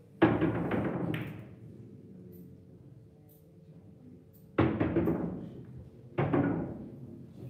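Billiard balls knocking against each other and the cushions of a boccette table: three bouts of sharp, resonant knocks, near the start, past the middle and near the end, each ringing out over about a second.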